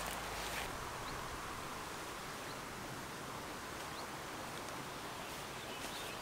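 Steady outdoor background hiss of the riverbank, with a brief rustle in the first half second and a few faint, short, high chirps scattered through it.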